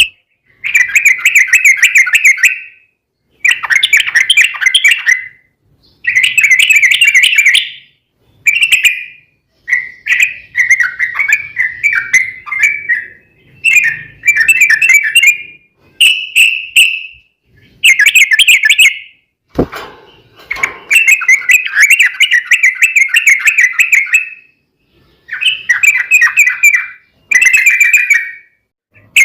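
Yellow-vented bulbul (trucuk) singing its rapid bubbling, rolling song in repeated phrases of one to three seconds with short pauses between. A single sharp knock sounds a little past two-thirds of the way through.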